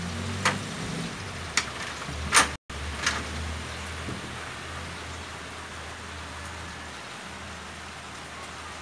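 Light rain falling on a corrugated metal roof: a steady hiss with a few sharp ticks, the loudest about two and a half seconds in.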